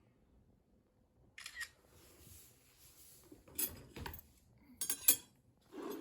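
A handful of short, sharp clicks and clacks of objects being handled, spaced about a second apart after a quiet start, the loudest pair near the end.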